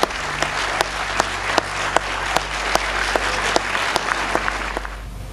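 A crowd applauding, with sharp clicks at a steady beat of about two and a half a second over it; the applause fades out near the end.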